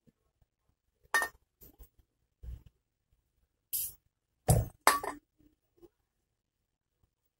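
Light metallic clicks and clinks as the rotor of an air-conditioner indoor fan motor and a spray can are handled. A short spray hiss comes about midway, as lubricant is sprayed toward the rotor's bearing.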